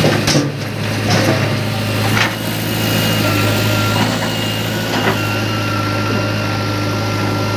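JCB 3DX backhoe loader's diesel engine running steadily under working load. Soil pours from the bucket into a steel tractor trolley, and a few knocks and clatters follow as the bucket dumps and digs. A thin steady whine joins in about three seconds in.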